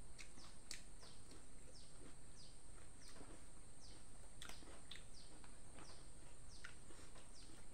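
A bird calling: short high chirps, each falling in pitch, about two a second, over a steady high-pitched hiss.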